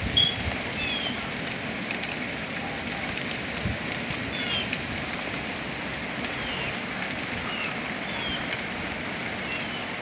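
Steady rain falling, with short, high chirps repeating every second or so over it.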